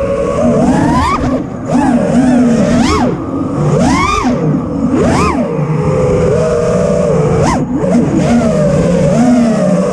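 5-inch FPV freestyle quadcopter's brushless motors (Ethix Mr Steele Stout 2306, 1750KV, on 6S) and propellers whining, the pitch surging up and dropping back several times as the throttle is punched and chopped, with a steadier stretch in the middle.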